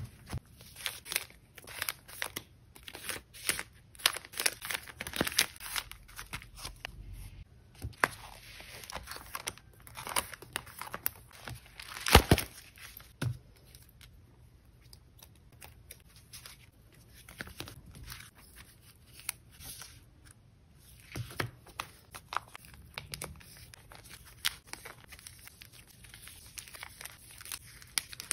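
Clear plastic photocard sleeves of a small collect book crinkling and rustling as photocards are shuffled and slid into the pockets, with many light clicks and taps of the cards. One sharper snap stands out about twelve seconds in.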